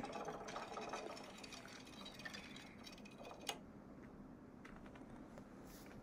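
Faint, rapid wooden clicking of spring-mounted carved woodpecker toys pecking their way down wooden dowels. The clicking dies away, with one sharper click about three and a half seconds in.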